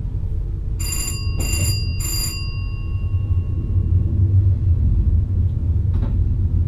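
A bell strikes three times in quick succession, about half a second apart, its clear ringing fading within a second. Under it runs the steady low rumble of the VIRM train on the move.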